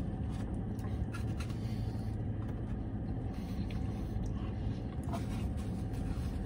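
Steady low rumble of a car idling, heard from inside the cabin, with a few faint clicks and rustles from eating.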